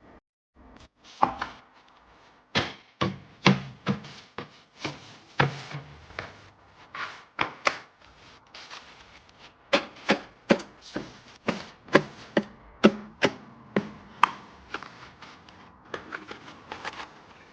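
Irregular series of sharp knocks and clacks, about one or two a second, some with a dull thud: hard kitchen items and food being handled and set down on a hard surface.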